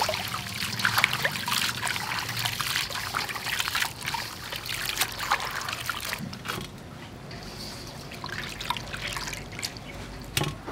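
Water splashing and trickling in a stainless steel bowl as hands squeeze and wash soaked strips of dried vegetable. About six seconds in it turns quieter, down to scattered light drips and splashes.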